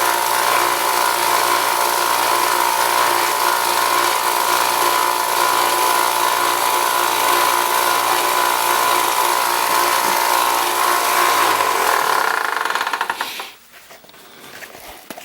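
Power sander running steadily while sanding brake pads, then switched off and winding down about twelve seconds in.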